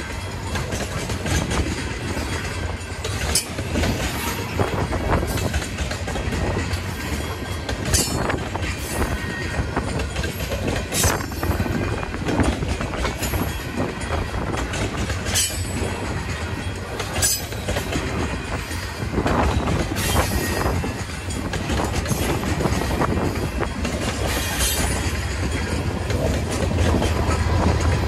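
Freight train of empty grain cars rolling past: a steady rumble with irregular sharp clicks and clunks from the wheels over the rail joints. A deeper, louder rumble builds near the end.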